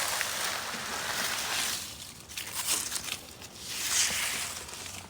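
Spray hissing against an air conditioner's condenser coil during a coil cleaning, in uneven bursts: a long one for nearly two seconds, then shorter ones.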